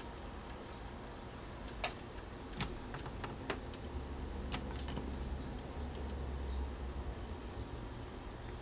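La Pavoni lever espresso machine being worked slowly during pre-infusion: a few faint clicks and knocks in the first half, short faint high squeaks, and a low hum in the middle.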